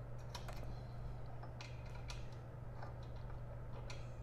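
Light, irregular clicks of a small Allen key being seated and turned on a foot peg mounting bolt a fraction of a turn at a time, over a steady low hum.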